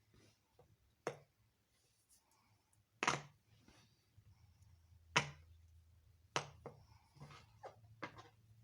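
Fidget toys being handled, giving five sharp clicks or snaps one to two seconds apart, over a faint steady low hum.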